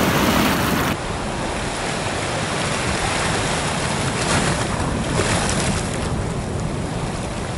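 Ocean surf breaking and washing up onto a sandy beach: a steady rush of waves, with wind on the microphone.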